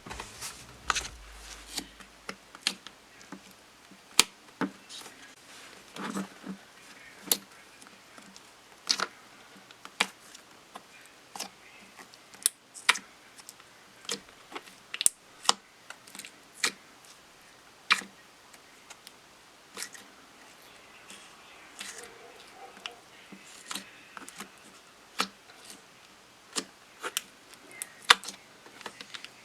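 Clear slime being kneaded and pressed by hand with eyeshadow pigment mixed in, giving off irregular sharp clicks and pops, about one or two a second, as trapped air bubbles burst.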